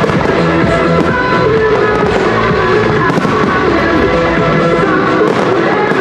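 Music playing loudly and steadily, with aerial firework shells bursting over it in a few sharp bangs.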